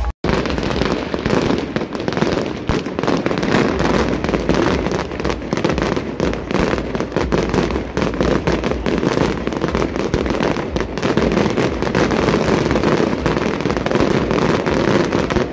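Fireworks display: a dense, unbroken stream of bangs and crackling from aerial shells and rooftop fountain fireworks, starting abruptly.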